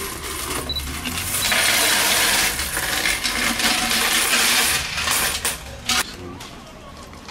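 Coins rattling inside a cut-open tin money box as it is tipped and shaken to empty it, a loud dense rattle lasting about four seconds, followed by a few separate clinks.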